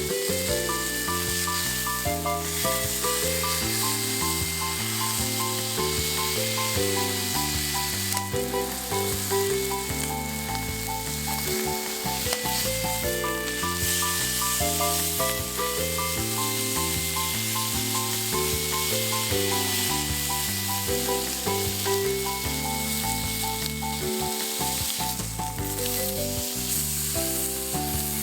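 Food sizzling steadily in a hot frying pan over a campfire, under background music with a repeating bass line and melody.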